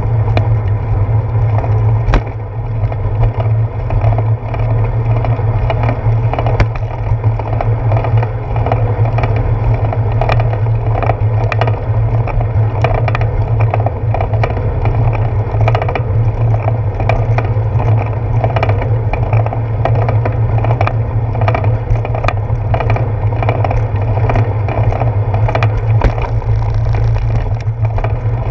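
Bicycle rolling over a concrete path and sidewalk, picked up through a handlebar-mounted GoPro Hero 4: a steady low rumble of ride vibration, with frequent small clicks and knocks as the bike and camera mount rattle over bumps.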